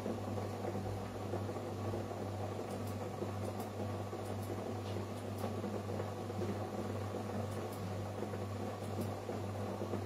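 A steady whirring hum of a small fan motor, with a constant low drone underneath.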